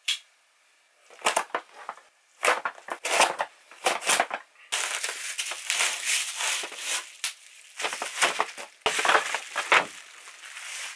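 A cardboard mailing box being torn open with a few short, sharp rips and snaps, then bubble wrap pulled out and unrolled, crinkling and crackling continuously from about five seconds in.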